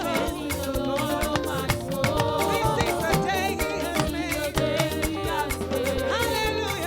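Upbeat praise-and-worship music from a church band, with a steady percussive beat.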